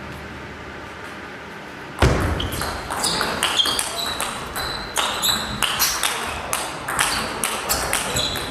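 A table tennis rally: the ball clicks off the bats and pings on the table several times a second. Background hall noise rises suddenly about two seconds in.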